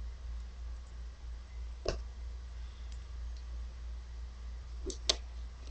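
A few sharp clicks over a low steady hum: one about two seconds in, then two close together near the end.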